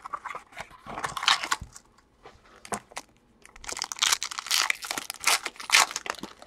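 Crinkly plastic wrapper of a trading-card mini box being torn open and pulled apart by hand, in irregular rustling bursts. The longest and loudest stretch runs from about four to six seconds in.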